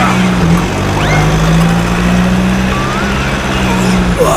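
Vehicle engine running with a steady low drone that dips briefly about half a second in and again near the end, with a few short rising whistle-like chirps above it.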